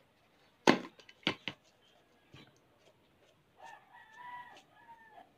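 A sharp click about a second in, with two smaller knocks just after, as the lid of a parmesan cheese jar is twisted open. Then, past the middle, a rooster crows once, fainter than the click.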